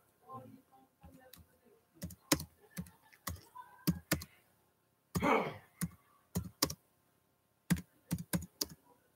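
Computer keyboard being typed in short bursts of sharp key clicks. A brief breathy vocal sound, like a sigh or mumble, comes about five seconds in and is the loudest moment.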